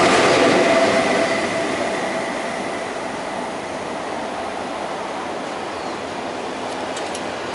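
Lok 2000 (Re 460-type) electric locomotive at the rear of the KTT double-deck train passing through the station without stopping. The running noise, with a faint steady whine, dies down over the first two seconds or so as the train moves away, leaving a lower steady rumble.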